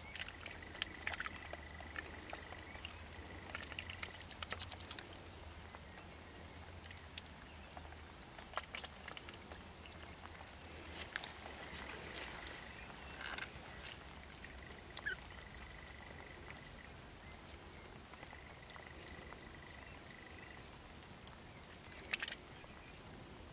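A duck dabbling in shallow water: faint splashing and quick clicking runs from its bill working through the water, thickest in the first few seconds and again briefly near the end.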